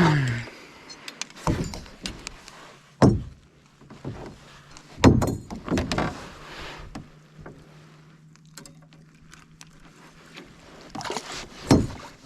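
A few sharp knocks and clatters in a small fishing boat, four or five spread apart, over a faint steady hum.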